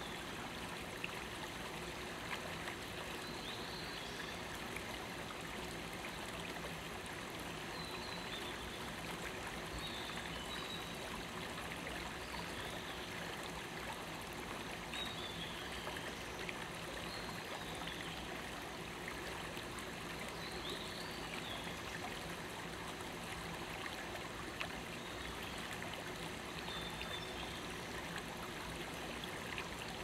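Shallow, rocky forest stream running over stones in a steady, even babble. A few brief, high, falling calls are scattered through it.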